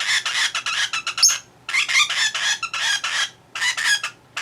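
Lovebird chattering: rapid, high-pitched chirps in three quick runs separated by short pauses.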